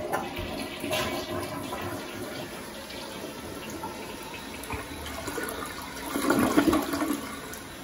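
A toilet flushed with its chrome lever: a click of the handle, then water rushing and swirling round the bowl, with the loudest surge about six to seven seconds in as the bowl drains.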